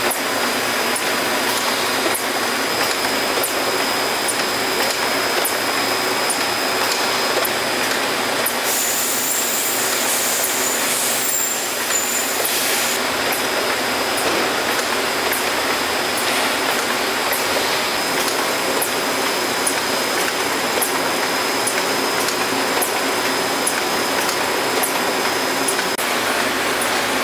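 Stelron conveyor walking beam assembly machine running: a steady mechanical noise with a faint high tone and faint regular ticking, joined by a burst of high hiss about nine seconds in that lasts about four seconds.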